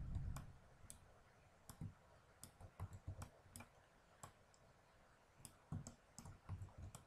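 Faint, irregular clicks of a computer mouse and keyboard, with a few soft low thumps in between.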